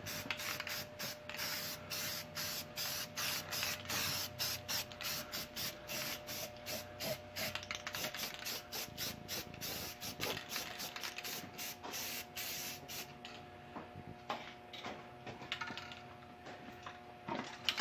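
Spray paint can hissing in rapid short bursts, several a second, as paint is dabbed into tight spots; the bursts thin out and stop about two-thirds of the way through.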